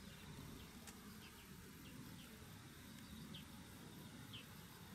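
Near silence: faint outdoor pond-side ambience, a low even rumble with a scattering of faint, short, high chirps.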